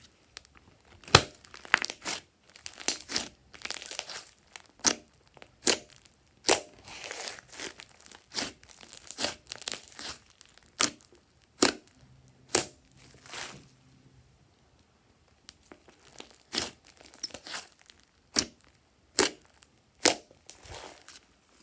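Thick green slime with small beads mixed in being kneaded, pressed and stretched by hand: an irregular string of sharp sticky pops and clicks with stretches of softer crackling, and a short lull about two-thirds of the way through.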